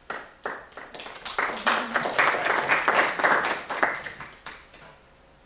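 Audience applauding, many hands clapping. It starts right away, is loudest in the middle and dies away about a second before the end.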